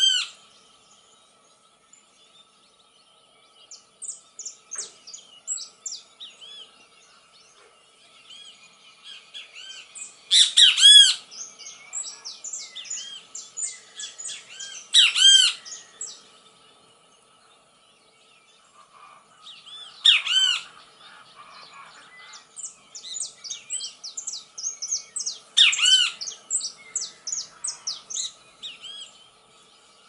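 Bird-like chirps and squawks in busy clusters, with loud bursts every five seconds or so, over a faint steady high tone.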